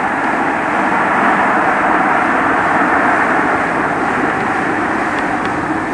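InterCity 125 high-speed diesel train running along the main line: a steady, jet-like rushing drone that eases slightly over the last couple of seconds.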